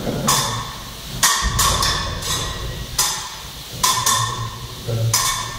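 Steel fencing blades clashing in a bout: a string of irregular, sharp metallic clashes and taps, each with a brief ring.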